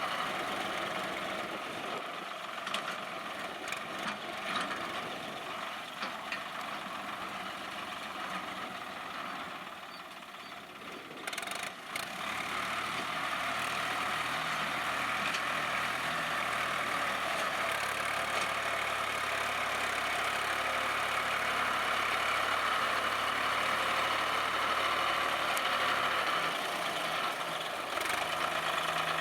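Swaraj 960 FE tractor's diesel engine running steadily, with a few sharp knocks about eleven seconds in.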